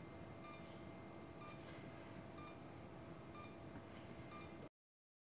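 A medical device in the procedure room beeping faintly, one short electronic tone about once a second, over quiet room tone. The sound cuts to dead silence near the end.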